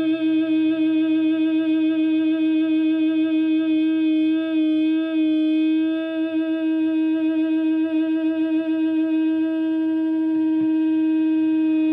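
Electric guitar through a germanium three-transistor Tone Bender MKII-style fuzz into a Marshall Plexi, holding one long sustained fuzz note. The note has a wide vibrato at first and settles into a steady tone about halfway through.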